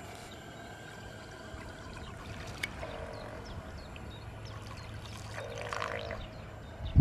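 Faint trickling and lapping water over steady outdoor background noise, with a low steady hum that grows about halfway through and a sharp knock near the end.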